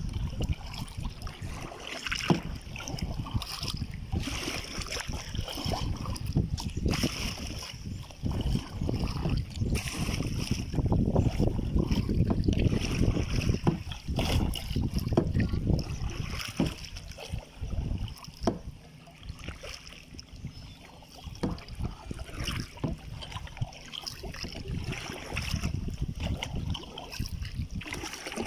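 Wind rumbling on the microphone during kayak paddling, with repeated knocks and splashes from the paddles and the boat; the rumble is strongest in the middle and eases near the end.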